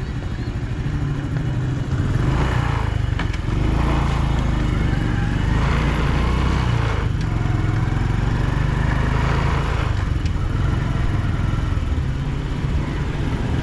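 Motorcycle engine running as the bike rides along, with a steady low hum and a haze of road and wind noise above it. It gets louder about two seconds in.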